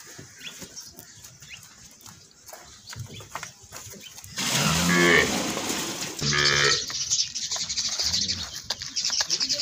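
Cattle mooing: two calls about halfway through, a long one followed closely by a shorter one.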